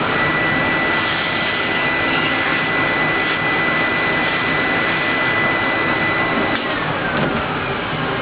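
Vacuum cleaner running, its hose nozzle sucking up old foam surround crumbs and debris from a woofer cone. The steady rush carries a high whine that sinks in pitch about six and a half seconds in.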